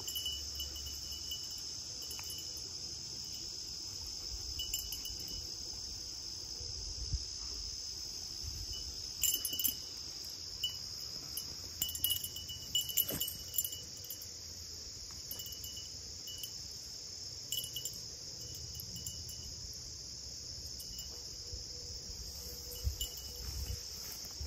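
Steady high-pitched chorus of field insects, with scattered light metallic jingles and ticks, most of them in the middle stretch.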